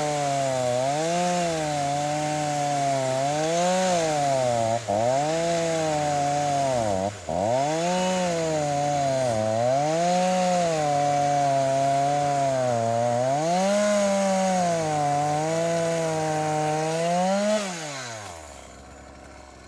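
2013 Homelite 42 cc two-stroke chainsaw at full throttle cutting through a thick log. Its pitch repeatedly sags and recovers, about every second and a half, as the chain bites into the wood. Near the end the revs drop away sharply.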